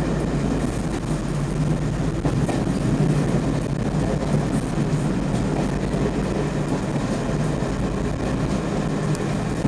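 Heritage diesel multiple unit under way, heard from the driver's cab: a steady low diesel engine drone over the rumble of the wheels on the track.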